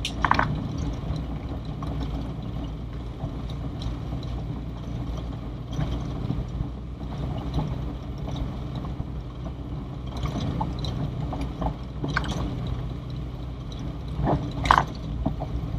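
A 1980 Toyota Corolla DX driving slowly, heard from inside the cabin: the engine's steady low hum, with a few short knocks and rattles as the car goes over the rough unpaved lane, the loudest just before the end.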